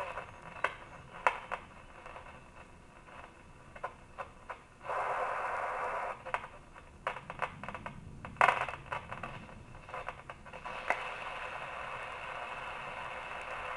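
RCA 262 tube radio receiver hissing with static and crackling as its dial is tuned across the band, with louder bursts about five seconds in and again past the middle.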